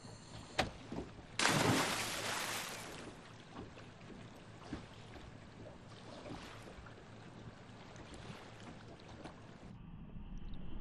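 Sea water sloshing and splashing around swimmers at the surface, with one loud splash about one and a half seconds in. Near the end the sound turns to a muffled underwater rumble.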